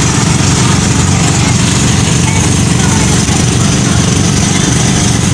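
Motorised outrigger boat (bangka) engine running steadily, loud with a fast low throb, with wash and wind hiss over it; rather noisy.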